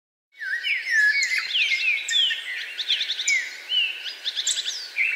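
A chorus of several birds calling at once: overlapping whistled notes, quick descending slurs and short trills, starting about half a second in.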